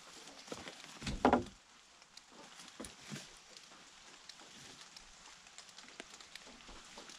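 A long wooden pole is shifted against a weathered log wall and roof edge, giving one brief scrape about a second in. Scattered faint ticks and drips follow over a quiet, wet outdoor background.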